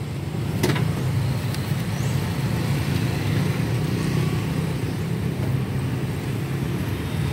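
Steady low rumble of street traffic and vehicle engines, with one short click near the start.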